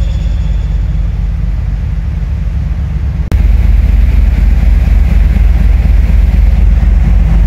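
Steady low rumble on the open deck of the moving car ferry KMP Mandalika: its engines and wake mixed with wind on the microphone. The rumble jumps suddenly louder about three seconds in.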